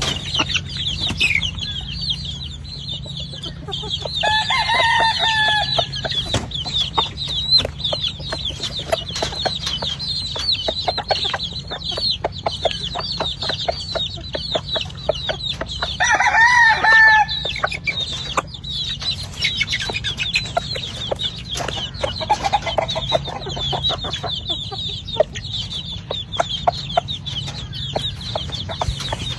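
A flock of chickens clucking and chirping continually, with a rooster crowing twice, about four seconds in and again around sixteen seconds.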